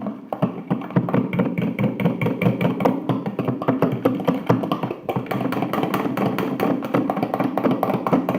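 A fork stirring soap and salt slime in a container, clicking and tapping rapidly and irregularly against the sides.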